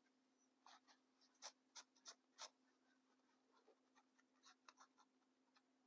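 Faint, short scratching strokes of a wipe damp with isopropyl alcohol being rubbed over the rubber sole of a 75 mm three-pin boot to clean off dust and grime, a burst of strokes in the first half and a few lighter ones near the end.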